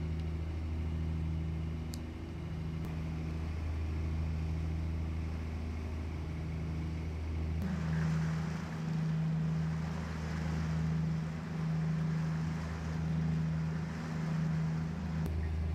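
A trawler's diesel engine running steadily underway, a low drone. About halfway through the deepest hum drops and a rush of wind and water comes in, and the engine note swells and fades about once a second.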